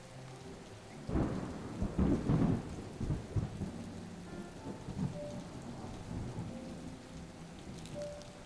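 Thunder rumbling over steady rain: a loud roll starts about a second in, peaks soon after and dies away over a few seconds while the rain keeps falling.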